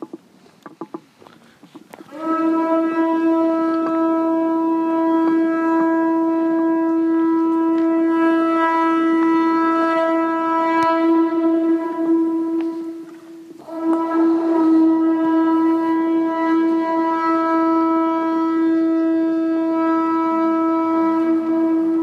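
Conch shell trumpet (atecocolli) blown in two long blasts, each a single steady note. The first starts about two seconds in and breaks off briefly around thirteen seconds before the second begins.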